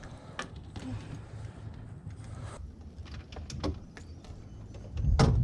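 Scattered light clicks and knocks of handling on a fishing boat, with one loud thump near the end, over a low steady rumble.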